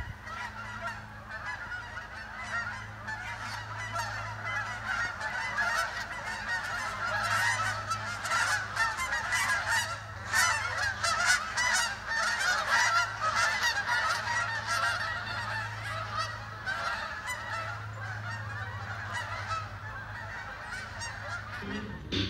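A large flock of Canada geese honking as it flies overhead, many calls overlapping, loudest in the middle stretch. A low steady hum runs underneath.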